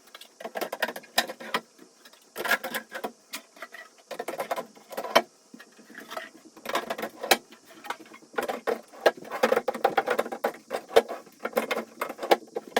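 Closet drawers being slid onto their metal drawer rails: a run of irregular clicks, knocks and rattles, in clusters with short gaps.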